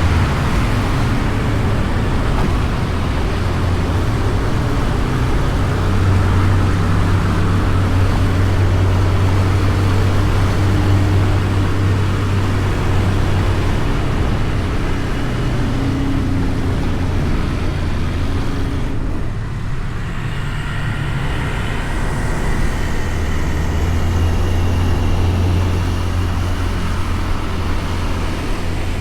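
Honda Beat scooter riding in city traffic, heard from a camera mounted on the bike: a steady low drone of engine and road noise under a continuous rushing haze. It briefly dips just before two-thirds of the way through, after which a few faint higher tones come in.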